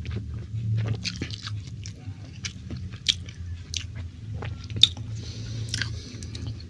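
Close-up mouth sounds of a man eating rice with stir-fried beef: chewing with wet smacks and scattered short clicks, one sharper click about three seconds in and another near five seconds, over a low steady hum.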